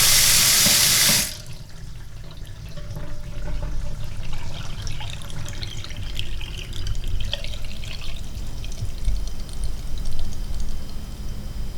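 Water tap running full, shut off abruptly about a second in, then dripping and trickling as the last water drains from the spout into the sink, with a low hum underneath.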